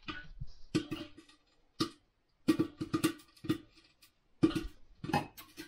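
Popcorn kernels popping in a pot on the stove: irregular sharp pops, some in quick clusters and some alone, with short gaps between.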